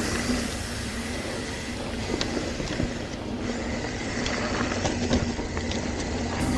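Mountain bike being ridden on a trail: a steady rumble and rattle with scattered sharp clicks.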